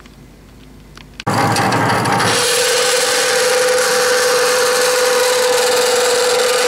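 Craftsman Professional 15-inch metal-cutting band saw cutting 1/8-inch cold-rolled steel plate. After a second of quiet room tone the loud sawing starts suddenly, and about a second later a steady ringing tone joins it and holds.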